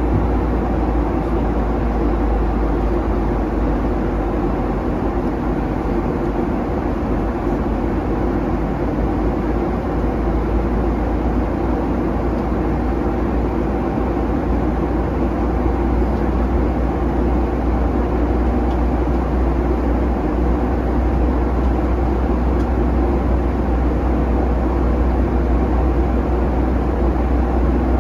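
Steady cabin noise of a Boeing 737-900 in flight, heard from inside the passenger cabin: an even, low drone of jet engines and rushing air that does not change.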